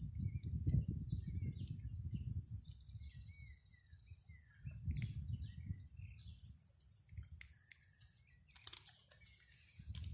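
Small birds chirping and calling with short, quick notes, with bouts of low rumble during the first few seconds and again about five seconds in.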